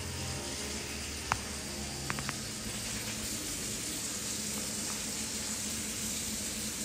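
Soft, sustained background music under a steady hiss, with three light clicks a little after one second and about two seconds in.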